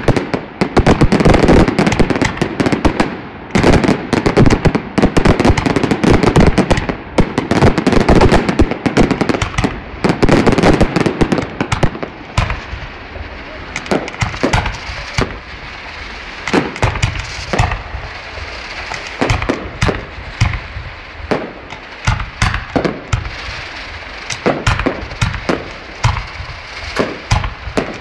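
Aerial fireworks display: a dense, continuous barrage of shell bursts and bangs for about the first twelve seconds, then quieter, rapid separate pops and cracks from the bursting stars.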